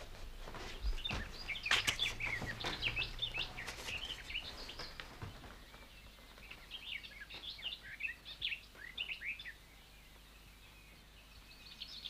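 Small birds chirping and twittering in short repeated phrases, with a few sharp taps about one to two seconds in.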